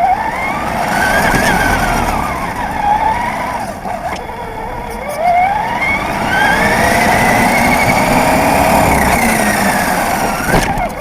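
Electric remote-control car motor whining, its pitch rising and falling several times as it speeds up and slows down, with a short drop-out about four seconds in.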